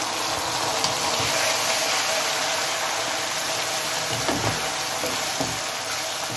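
Pressure-cooked butt (tripe) and its cooking liquid sizzling steadily in hot oil and browned onions in a karahi, the sizzle starting suddenly as it goes in. A wooden spatula stirs it, with a few soft knocks against the pan.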